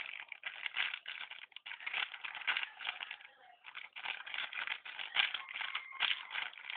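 Crackling, rustling handling noise close to the microphone: a squishy toy in a clear plastic wrapper being turned and squeezed in the fingers, with a brief lull about halfway through.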